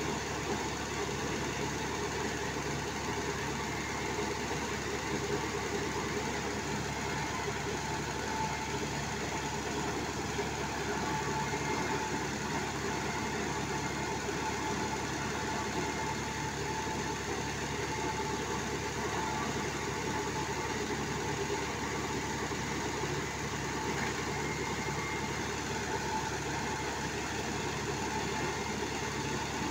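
An engine running steadily at one even speed, with no change in pitch or load: the power unit of a sand-piling rig at work.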